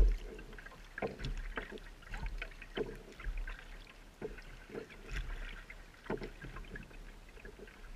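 Paddle strokes on a Pelican Quest 100 kayak: the blade dipping into calm water with splashes and drips at uneven spacing, roughly one a second. There is a sharp knock right at the start.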